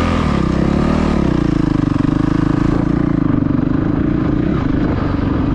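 Single-cylinder dual-sport motorcycle engine running at speed. Its pitch rises and falls over roughly the first second and a half as the throttle is worked, then holds steady.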